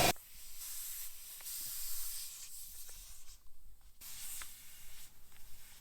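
Aerosol spray can hissing in two bursts, a long one of about three seconds and, after a short pause, a shorter second one.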